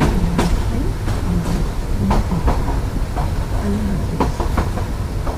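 Passenger train running at speed, heard from inside a coach: a steady low rumble with irregular sharp clacks of the wheels and carriage.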